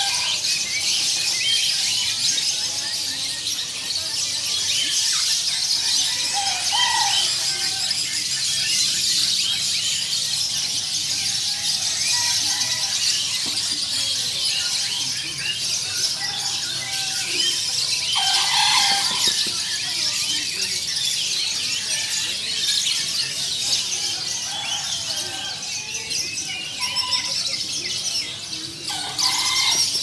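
Dense chorus of many caged songbirds chirping and trilling at once, high-pitched and unbroken, with a few louder, lower calls standing out now and then.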